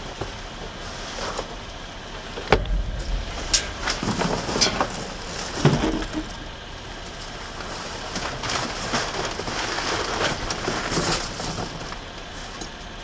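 Cardboard, paper and plastic packaging rustling and crinkling as trash is shifted by hand inside a dumpster, with a sharp knock about two and a half seconds in.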